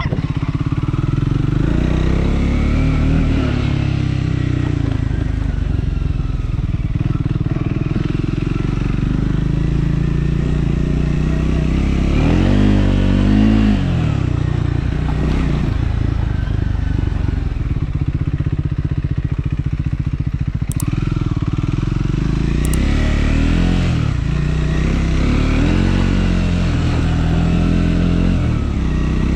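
Triumph Scrambler 400 X's single-cylinder engine running under way, its note rising and falling with the throttle, most clearly in two stretches about halfway through and near the end. Two short sharp clicks sound a little after the middle.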